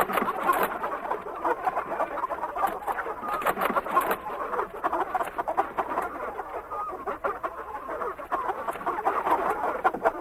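A flock of farm chickens clucking together: a dense, continuous chatter of many overlapping calls.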